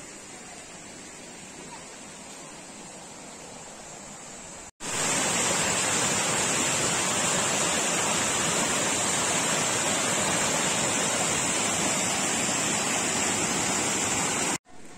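River water flowing, a fairly quiet steady rush at first; about five seconds in it switches abruptly to much louder rushing water pouring over small cascades and rapids, which cuts off suddenly just before the end.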